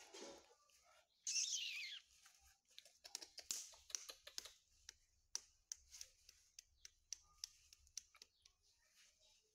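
A baby macaque gives one short, high squeal that falls steeply in pitch about a second in. It is followed by a run of soft clicks and rustles as the monkey is handled and dressed.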